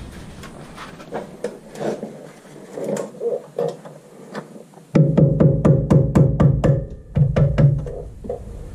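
Electronic background music with a drum-machine beat. It starts thin with the bass cut out, then the full beat and bass come in suddenly about five seconds in.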